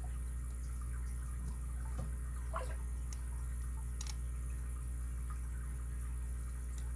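Faint sparse metallic ticks and a short scrape of a lock pick and tension wrench working the pins of a padlock, over a steady low hum.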